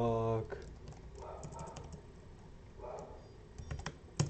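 Computer keyboard typing: scattered key clicks, with one sharper key press near the end. A drawn-out hummed vowel sounds at the very start.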